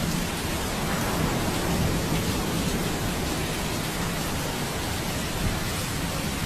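Steady rain falling during a thunderstorm, an even hiss with no distinct drops or claps.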